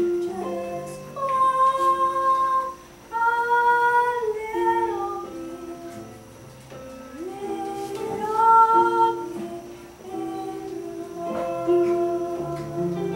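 A woman singing a Broadway show tune, holding long notes, accompanied by an electronic keyboard.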